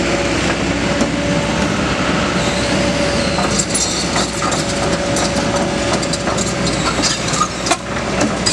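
Kobelco SK200 crawler excavator travelling on its steel tracks over asphalt: the diesel engine runs steadily with a steady whine, and from about three seconds in the track links clank and rattle continuously.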